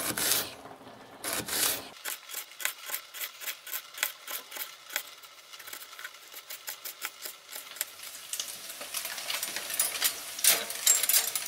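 Small pocket-knife blade slicing an onion into thin half-rings, a quick steady run of taps on a plastic cutting board. Near the end, chicken breast pieces sizzling as they fry in a pan.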